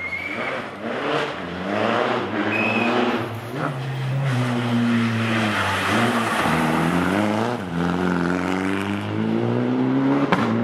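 Rally car's engine approaching and passing, revving hard as it takes a corner. It grows louder over the first couple of seconds, then its pitch rises and drops several times as it changes gear.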